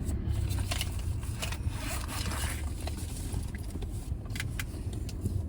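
A zipper pulled and small items handled, likely a wallet being opened to take out cash: scattered light clicks and a rustling scrape about two seconds in, over a steady low hum.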